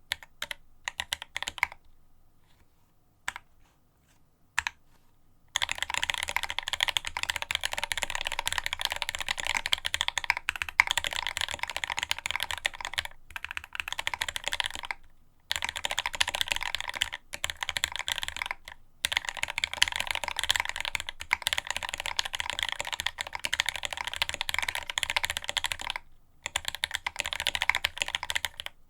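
Fast typing on a Quasi Alice mechanical keyboard with Marshmallow switches and GMK ABS keycaps: a dense run of key clicks and clacks. It starts with a few scattered keystrokes, pauses for a few seconds, then runs steadily from about five seconds in with brief stops.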